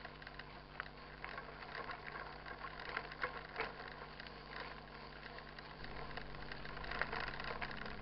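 Soul SL 129 mountain bike rolling on a gravel dirt road: tyres crunching over loose gravel with scattered clicks and rattles, over a faint steady hum.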